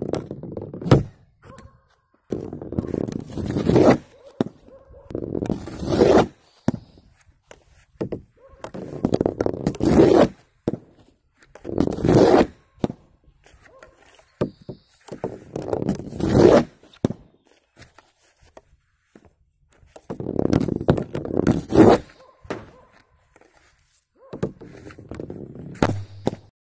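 Floorball stick blade scraping the plastic ball across a wooden shooting board, each drag ending in a sharp crack as the ball is struck. This happens about seven times, with short quiet gaps between shots.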